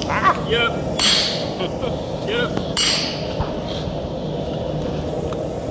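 A sledgehammer strikes a handled fuller held on red-hot axe steel on an anvil, fullering the axe eye. There are two heavy metal-on-metal blows, each with a short ring, about two seconds apart.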